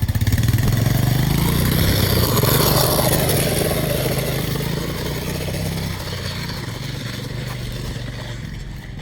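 An engine running with a steady low hum, loudest over the first few seconds and then slowly fading.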